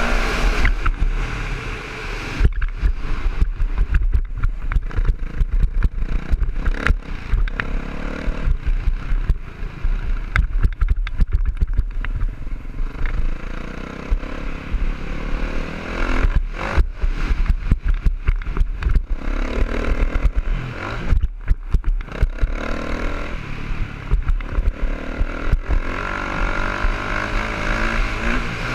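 Dirt bike engine revving up and down as it is ridden round a motocross track, with wind buffeting a helmet-mounted microphone and irregular clattering knocks over the rough ground.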